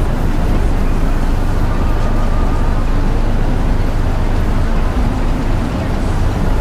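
Steady low rumble of outdoor ambience, with faint distant voices.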